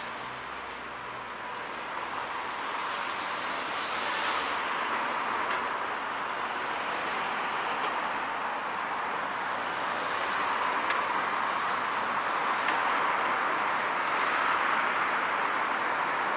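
Road traffic passing close by: cars and a van going past on the street, a steady rush of tyre and engine noise that swells as each vehicle passes and grows louder in the last few seconds.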